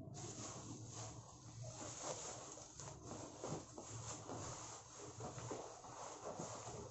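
Bubble wrap crinkling and rustling as hands grip a bubble-wrapped motorcycle helmet and lift it out of a cardboard box, with some cardboard scraping.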